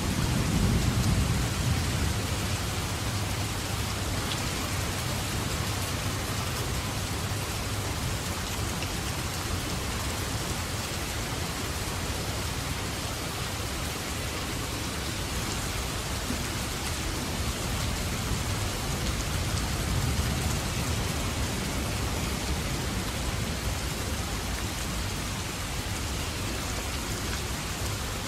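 Steady rain falling, an even hiss with no let-up, with a heavier low rumble in the first couple of seconds.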